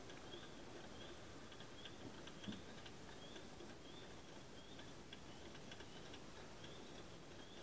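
Antique capucin-type clockwork roasting jack running: its wound gear train and turning spits give faint, irregular light ticks and clicks, with one slightly louder knock about two and a half seconds in.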